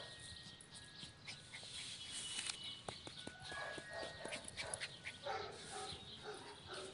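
Small dog running and playing on artificial turf: a scatter of light taps and clicks from its paws and movement, with dog sounds mixed in.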